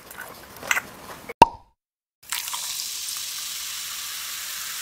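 Faint chewing, then a single sharp pop about a second and a half in. After a brief silence, a steady high fizzing hiss of carbonated beer foam begins.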